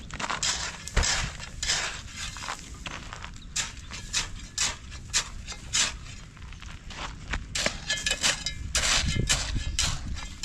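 A shovel scraping and crunching through a heap of sand and ballast, mixing it by hand for concrete, in quick irregular strokes about one or two a second.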